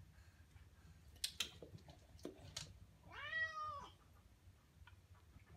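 A young black-and-white cat meows once, about three seconds in: a single call just under a second long that rises and falls in pitch, while it looks up at a treat held above it. A few sharp clicks come a couple of seconds before it.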